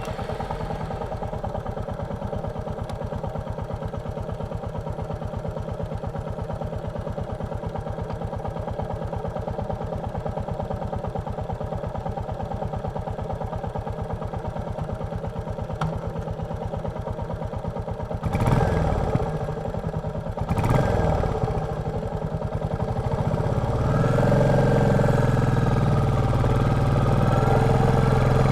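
Royal Enfield Meteor 350's single-cylinder engine idling with an even thump. About two-thirds of the way in it gives two short, louder surges, like blips of the throttle. It then runs louder toward the end.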